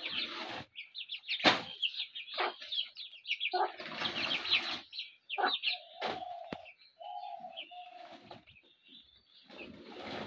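Chicks peeping in quick, high chirps while they feed with their hen, with a few lower, drawn-out calls about two-thirds of the way through and some sharp clicks.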